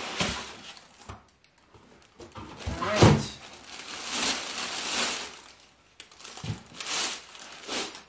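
Plastic bag crinkling and foam packing blocks rubbing as a dryer is lifted out of its cardboard box and unwrapped, in several rustling bursts. A dull thump about three seconds in is the loudest sound.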